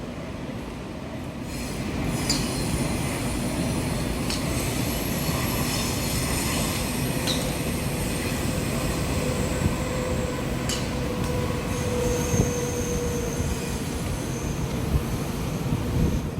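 Strong typhoon wind rushing and buffeting, with thin high metallic squeals and a few sharp clicks or clanks scattered through it.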